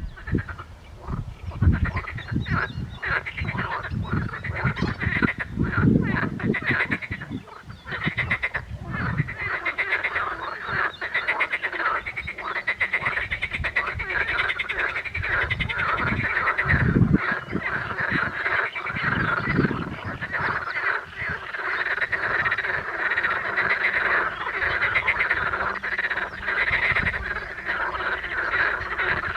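Chorus of edible frogs (green frogs, Pelophylax kl. esculentus), many males calling at once with fast, rattling croaks that overlap into a continuous din.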